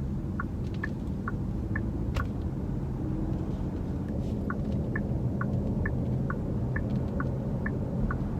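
Turn-signal indicator ticking inside a Genesis GV70's cabin, an even tick-tock alternating high and low about twice a second that stops for a couple of seconds midway and then resumes, over steady road and engine rumble. A single sharp click sounds about two seconds in.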